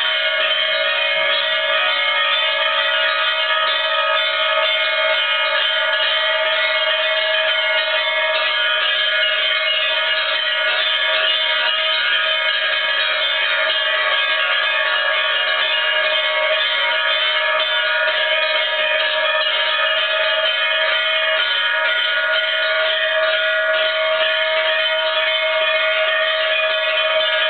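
Many bells ringing at once, a dense jangle of bell tones that stays steady and unchanging throughout.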